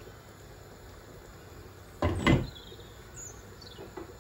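A glass saucepan lid with a metal rim set down onto a pot: one short clatter about two seconds in, knocking twice in quick succession.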